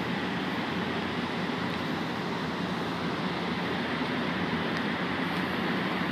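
Steady, unbroken background rumble of mechanical noise, with no distinct events.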